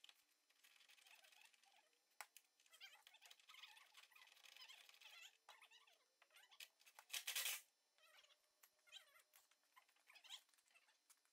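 Near silence, with faint chirps and scattered small clicks, and one brief louder noise about seven seconds in.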